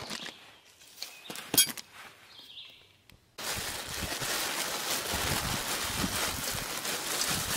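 A few sharp handling clicks, then from about a third of the way in dry dehydrated chicken and rice poured from plastic bags into a cooking pot: a steady rustling pour with plastic crinkling.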